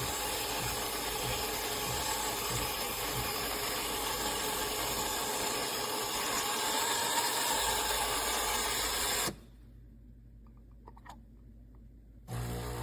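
Espresso machine running with a steady hiss, which cuts off suddenly about nine seconds in, leaving near silence with a few faint clicks.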